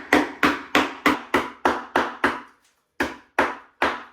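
A Terry's Chocolate Orange being knocked hard against a surface to break it into segments. There are about eight sharp knocks at roughly three a second, a short pause, then three more.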